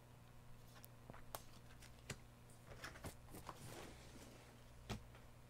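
Faint scattered clicks and light rustles of hands handling trading cards and a foil booster pack, over a faint low hum.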